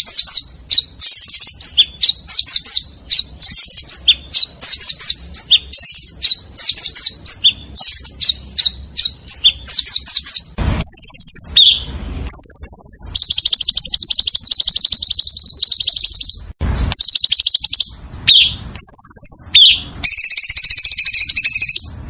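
Songbird singing loudly: a run of quick, sharp chirps and whistles, then long, rapid rolling trills from about thirteen seconds in and again near the end. A couple of brief low thumps come partway through, and the song cuts off abruptly at the end.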